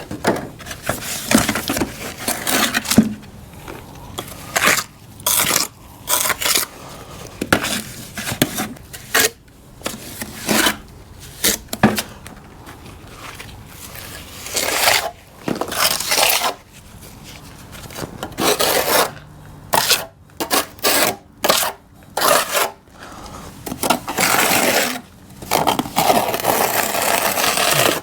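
A mason's trowel scraping over fresh hydraulic cement and the concrete foundation wall in short, irregular strokes, packing the cement into a crack and smoothing it.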